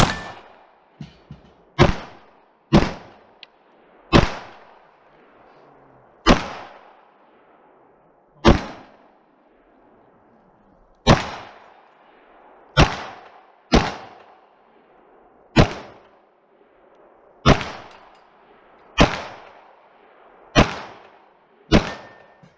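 Glock pistol fired about fourteen times at an irregular pace, shots roughly one to two seconds apart, each crack trailing off in a short echo. A few fainter knocks come between the first shots.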